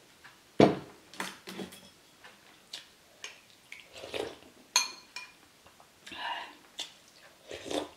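A metal spoon and tableware clinking and knocking on ceramic bowls, the loudest knock about half a second in and a ringing clink near the middle, with soft mouth sounds of eating and sipping broth from the spoon.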